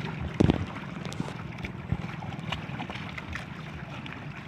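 Small outrigger boat's engine running steadily, with wind on the microphone and sea noise. A loud knock comes about half a second in, and a sharper click near two seconds.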